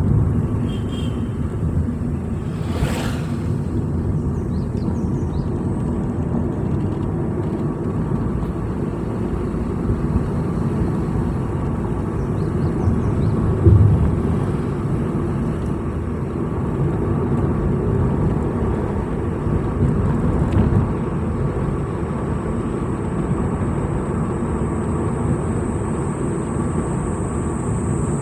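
Vehicle driving along a road: a steady low rumble of engine and tyres, with one thump about fourteen seconds in. A thin high whine comes up over the last few seconds.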